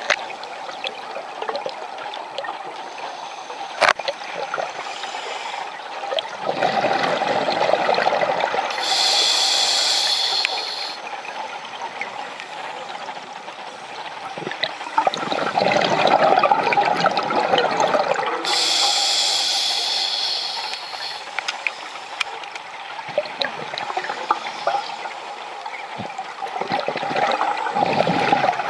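Scuba diver breathing through a regulator underwater: a rush of bubbling exhaled air, then a high hissing inhale, twice, about nine seconds apart.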